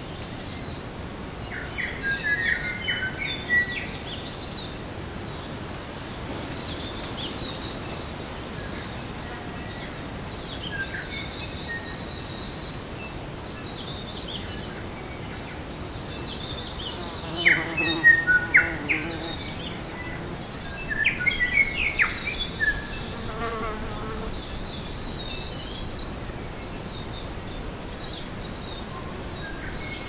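Small birds singing and chirping, with loud bursts of song a couple of seconds in, around seventeen seconds and around twenty-one seconds. Bees buzz close by, a low hum passing around seventeen seconds and again near twenty-four seconds.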